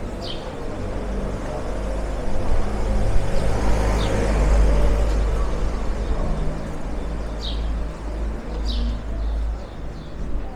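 A motor vehicle passing close by on the street: a low engine and tyre rumble that swells to a peak about halfway through and then fades away. A few short high chirps come and go over it.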